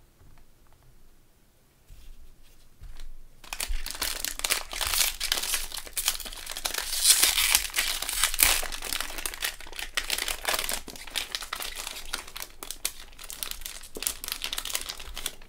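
A plastic trading-card pack wrapper crinkling as gloved hands handle it and tear it open, starting about three and a half seconds in as a dense crackle that is loudest around the middle.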